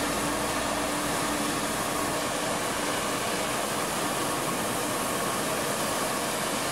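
A gas torch flame with a steady hiss, heating a steel rivet red-hot so it is ready for hot riveting.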